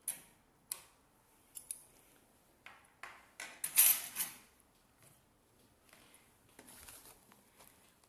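Small metal lock tools and a car door lock cylinder being handled: a few sharp metallic clicks and clinks, then a louder, longer clatter about four seconds in, and soft rustling near the end.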